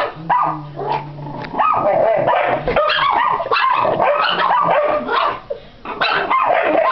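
Dogs barking and yapping rapidly in a squabble between a Yorkshire terrier and a larger tan dog jumping up at it, with a low growl about half a second in.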